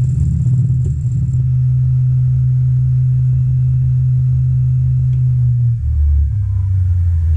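Wood lathe running with a loud steady low hum, which steps down to a lower pitch about six seconds in.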